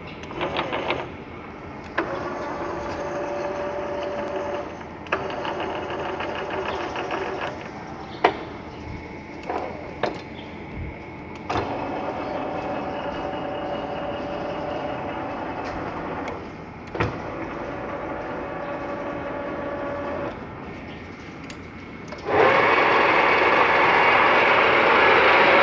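Metal lathe running with a steady whine, stopping and restarting several times with sharp clicks between runs. It runs louder for the last few seconds.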